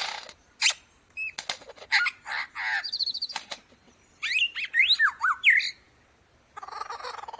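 Lyrebird singing a varied mimicking song: sharp clicks, quick whistled notes that rise and fall, and a fast trill, broken by short pauses. Near the end it switches to a steadier, rapidly pulsing call.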